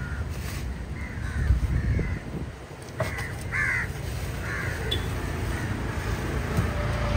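Crows cawing, a series of short caws, over a steady low rumble.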